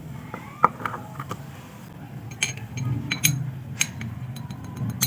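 Scattered sharp clicks and clinks of small hard objects being handled or tapped, a few at a time, over a faint low hum.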